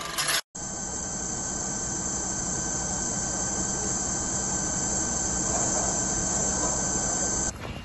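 Fire engine running at the scene: a steady engine noise with a high, even hiss over it that does not change.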